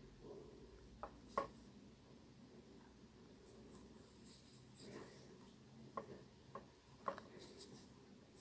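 Faint scratchy rubbing of a sewing needle and thread being drawn through thin fabric and handled by fingers, with a few soft clicks scattered through.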